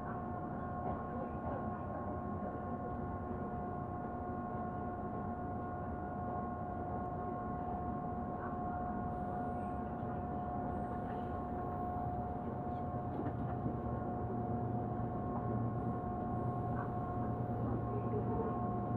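Steady hum inside a commuter train car, with two steady whining tones over a low rumble and a few faint knocks. The rumble grows a little louder in the second half.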